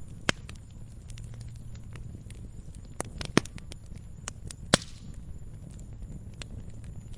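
Campfire burning, with a steady low rumble and scattered small crackles. Three loud sharp pops stand out: one just after the start, one about halfway through and one about two-thirds of the way in, the last followed by a brief hiss.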